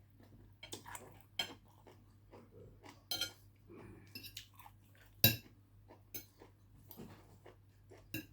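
Eating sounds: cutlery clinking and scraping against a dish between bites and chewing, with one sharp clink about five seconds in.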